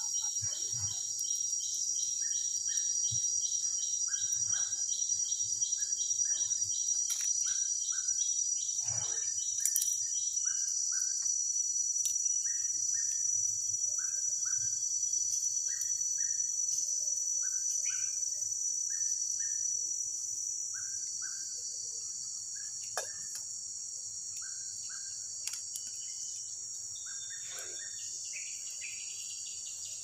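Tropical rainforest insect chorus: a steady high-pitched shrill, with a fast pulsing insect call over the first third that then stops. A short double chirp repeats about once a second throughout, and a few faint clicks come and go.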